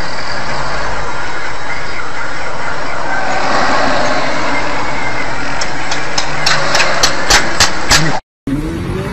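Steady, loud road and engine noise of a moving car picked up by a dashcam inside the car, with a run of sharp ticks, about three a second, in the last couple of seconds before it cuts off suddenly.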